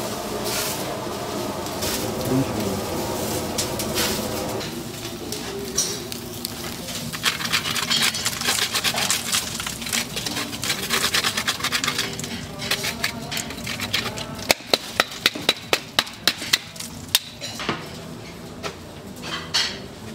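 Meat roasting on metal churrasco skewers over a grill: a steady buzzing hum at first, then crackling from about seven seconds in, and a quick run of about eight sharp metal knocks, about three a second, a little past halfway.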